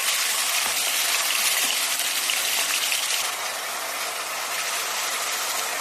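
Sliced chicken thighs frying in hot oil in a pan: a steady sizzle that eases a little about three seconds in.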